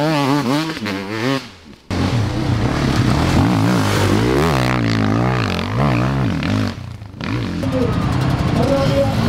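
Enduro motorcycle engines revving hard, their pitch rising and falling over and over with the throttle and gear changes. The sound drops away abruptly twice, about two seconds in and again about seven seconds in, before the engines come back.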